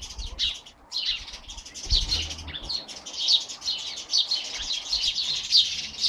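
Several small songbirds chirping and twittering in quick, overlapping high notes.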